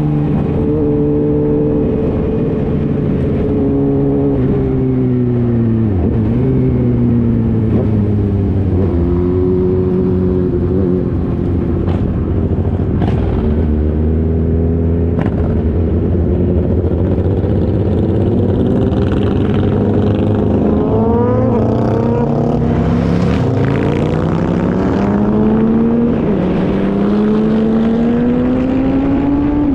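Motorcycle engine under way, its pitch climbing through each gear and dropping sharply at each shift, over steady wind noise.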